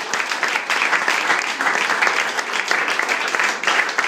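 A crowd applauding, many hands clapping at once without a break.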